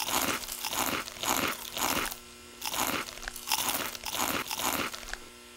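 Loud, crunchy chewing of food eaten from a bowl with a spoon, most likely cereal. It comes as a run of crunches at about two a second, with a short pause a little after two seconds in.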